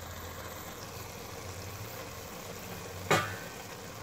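A steel pot of leafy greens sauce with tomatoes and pumpkin cooking on the stove with a steady hiss. About three seconds in, a single sharp clack, a wooden spoon knocking against the pot.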